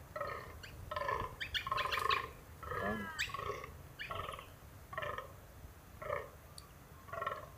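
Fallow buck groaning in the rut: a run of short, croaking calls, about one a second. This is the buck's dominance call during the rut.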